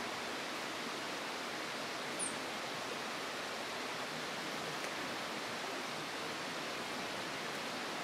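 Steady, even rushing noise, with one brief high chirp about two seconds in.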